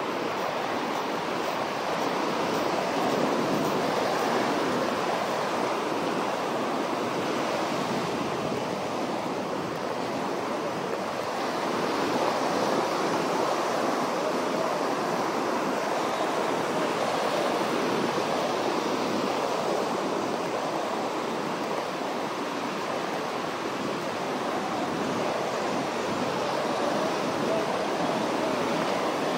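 Ocean surf breaking and washing up on a beach: a steady rush of waves that swells and eases a couple of times.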